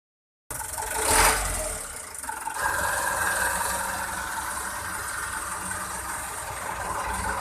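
Mitsubishi Canter HD 125 truck's diesel engine running, with a brief loud burst about a second in, then settling into a steady idle.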